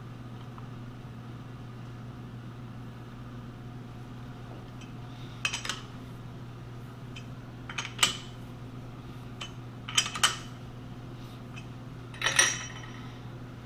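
Sharp metallic clinks from a T-handle chuck key working a six-jaw lathe chuck as a cast-iron handwheel is clamped in its jaws: a few separate clinks, a close pair about two-thirds through, and a longer ringing clank near the end. Under them a steady low hum.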